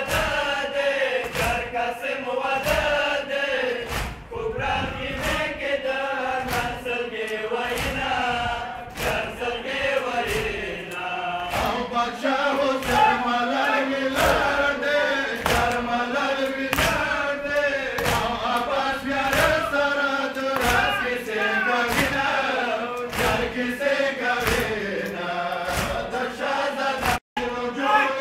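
Men's voices chanting a Pashto noha, kept in time by a steady rhythm of sharp slaps from mourners beating their chests in matam. The sound cuts out for a moment near the end.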